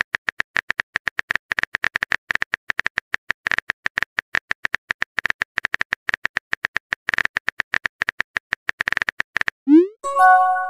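Simulated phone keyboard typing sound: quick, irregular clicks as a text message is typed letter by letter. Near the end a message-sent sound plays: a short rising blip, then a brief chime of several tones.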